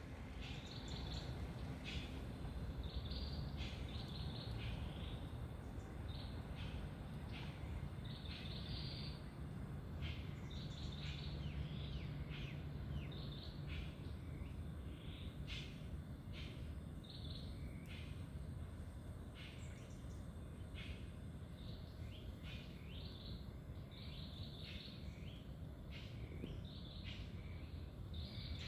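Birds chirping and calling again and again in short repeated phrases, over a steady low rumble of background noise.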